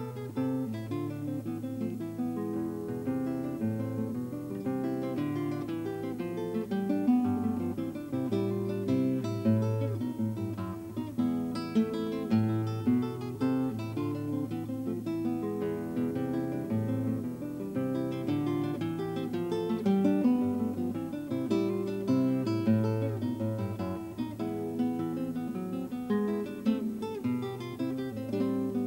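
Background music: acoustic guitar playing plucked notes over a moving bass line.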